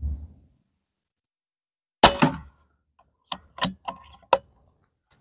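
A .22 DAR Gen 3 PCP air rifle fires once with a sharp report about two seconds in. A quick string of four or five metallic clicks follows as the action is cycled to feed the next pellet from its aluminium magazine. A brief low rumble comes at the very start.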